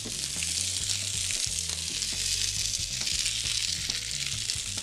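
Sliced zucchini and eggplant sizzling in a nonstick frying pan with a drop of olive oil: a steady frying hiss.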